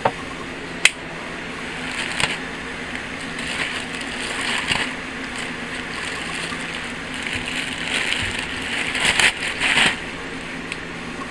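Vest packaging rustling and crinkling in irregular bursts as it is opened and handled, with a sharp click about a second in.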